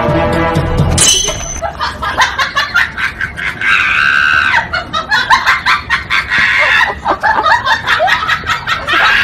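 Background music that stops about a second in, followed by frantic high-pitched shrieks and cries, with many short clicks and crackles mixed in.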